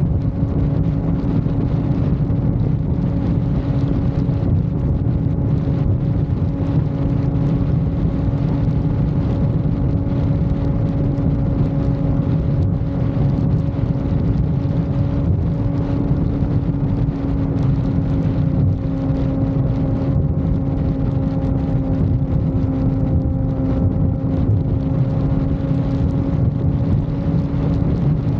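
Suzuki GSX-R600's inline-four engine holding a steady note at highway cruising speed, over a heavy rush of wind and road noise.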